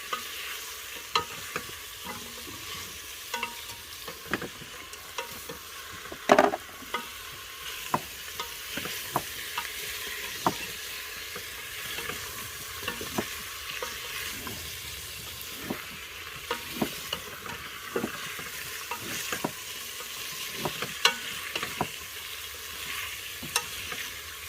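A stir-fry sizzling in a pan while it is stirred, the utensil clacking against the pan many times, with one louder knock about six seconds in.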